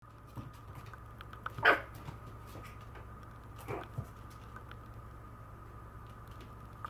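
Maltese puppy giving one sharp, loud yip about two seconds in and a shorter, weaker one a couple of seconds later, with small scattered ticks over a faint steady hum.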